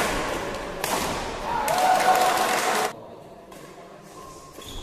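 Badminton racket striking the shuttlecock sharply, with a second hit about a second later. Shouts and cheering follow as the rally is won, then cut off suddenly about three seconds in.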